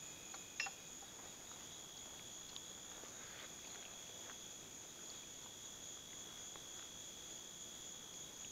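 Crickets singing in a faint, steady high-pitched trill, with one light metallic click a little after the start as a small metal stove part is set down.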